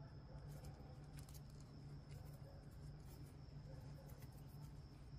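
Near silence: a steady low hum with faint scattered ticks and rustles from yarn and a needle being worked through crocheted stitches.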